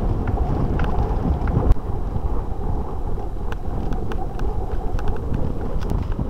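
Wind buffeting the microphone over the rumble of mountain bike tyres on a dirt track, with scattered small clicks and rattles.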